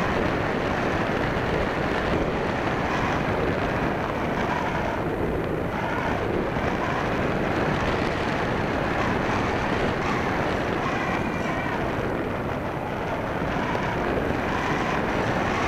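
Steady rush of airflow noise over a camera riding on a model airplane in flight, with no distinct motor tone standing out.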